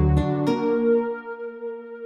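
Kurzweil K2vx synthesizer preset playing a quick run of notes over a bass line. About half a second in, it settles on a held final note that rings on and slowly fades.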